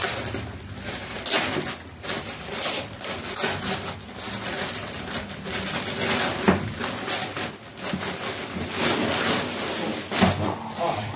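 Plastic packaging rustling and crinkling unevenly as it is handled and a punching bag is pulled out of it.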